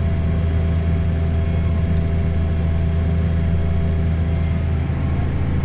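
New Holland tractor engine running steadily under load while pulling a reversible plough, heard from inside the cab as an even, low drone.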